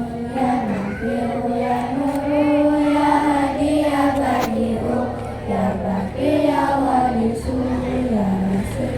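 Group of children singing a prayer together in unison, a slow melody of long held notes.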